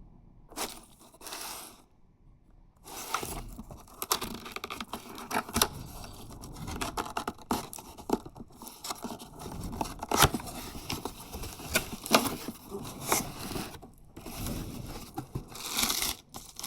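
Cardboard shipping box being opened by hand: packing tape tearing and cardboard scraping and rustling, with many sharp clicks and knocks. A short burst comes first, then a pause, then steady handling from about three seconds in.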